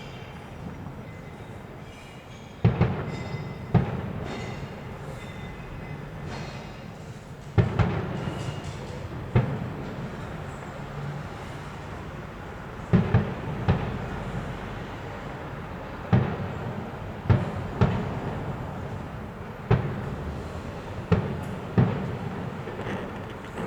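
Aerial fireworks shells bursting: about fourteen sharp booms at uneven spacing, several in quick pairs and triples, each rolling off in an echoing rumble.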